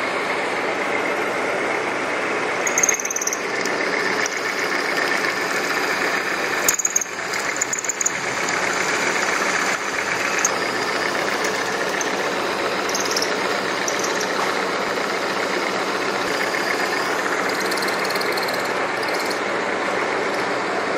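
Vertical milling machine running, its rotating cutter machining a metal block clamped in a vise: a steady cutting and machine noise, with brief high squeals now and then and a sharp knock about seven seconds in.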